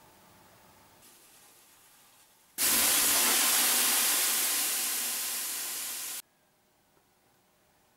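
Water ladled onto the hot stones of a sauna heater, hissing into steam (löyly). The loud hiss starts suddenly about two and a half seconds in, fades slowly, and cuts off sharply about six seconds in; before it there is only faint room tone.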